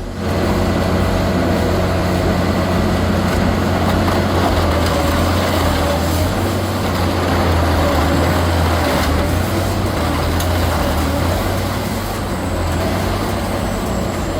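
Diesel-powered industrial shredder running under load: a steady, loud engine drone with the grinding noise of material being torn, and a few sharp cracks now and then.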